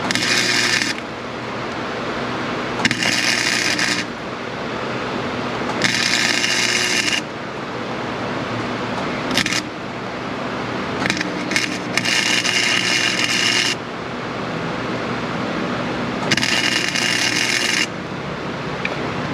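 Electric arc welder laying short crackling beads onto a broken exhaust manifold stud, building it up so that a nut can be welded on to back the stud out. There are about six bursts of one to one and a half seconds each, with a few brief flickers between them, over a steady low hum.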